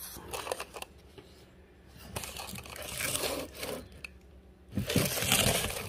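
Firework packaging rustling and crinkling as it is handled and pulled at, in two spells, the second and louder one near the end.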